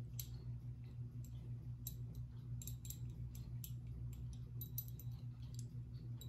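A steady low electrical hum with a dozen or so faint, light clicks scattered irregularly through it.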